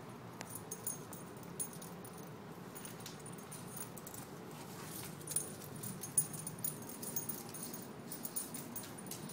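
Metal tags on a collie-terrier mix's collar jingling in scattered, irregular clinks as the dog chews and tugs a plush toy, with the loudest clinks about five and six seconds in.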